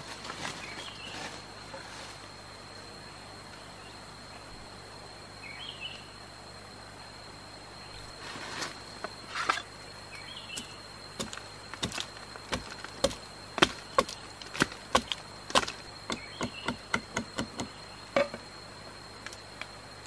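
A run of sharp, irregular knocks, about two a second, in the second half, over a steady high-pitched insect drone.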